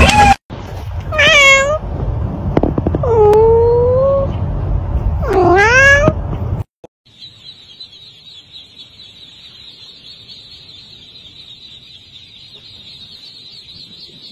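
A cat meows three times, each call sliding upward in pitch, over a low background rumble. About seven seconds in, that stops and a quieter, steady, high chorus of hundreds of ducklings peeping takes over.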